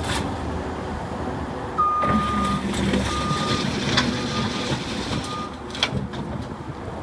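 Terex TSV60 skid steer's diesel engine running while its reverse alarm beeps a high single tone: one long beep about two seconds in, then three shorter ones. Sharp clanks come near the middle and again near the end.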